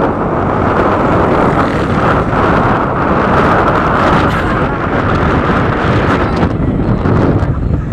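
Wind rushing over the microphone with engine and road noise from a moving vehicle, a loud, steady rush.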